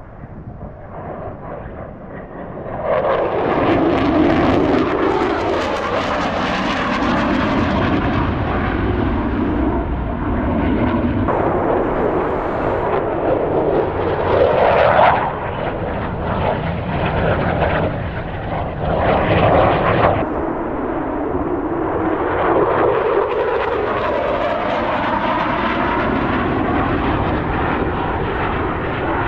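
F-35 Lightning II fighter jet's engine noise as the jet flies fast, hard-turning passes. The roar swells about three seconds in, stays loud with a sweeping, shifting whoosh, and surges briefly twice, near the middle and about two-thirds through.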